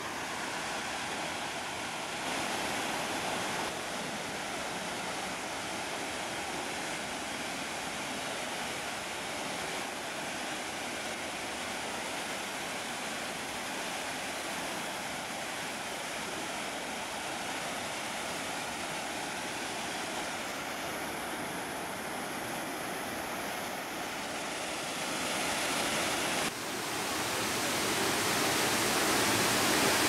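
Steady rush of water from Dry Falls, a waterfall on the Cullasaja River. It jumps in level about 26 seconds in and grows louder over the last few seconds as the falls are close.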